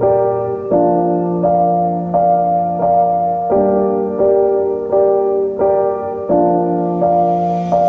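Background piano music: soft repeated chords struck about every three-quarters of a second, each ringing until the next.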